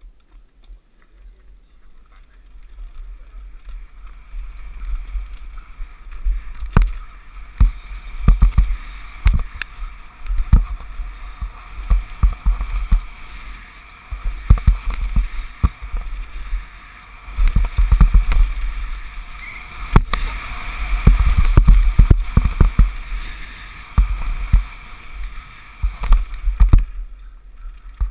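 Downhill mountain bike ridden fast over a dirt trail, heard from a helmet-mounted GoPro: wind buffeting the microphone as a low rumble, tyres running over dirt, and frequent sharp knocks and rattles from the bike over bumps. Quiet for the first couple of seconds, then building as the bike picks up speed.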